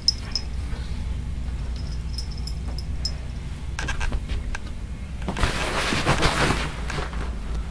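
Steady low hum with a few light clicks, then about five seconds in a second-and-a-half burst of rustling as fabric brushes right against the microphone.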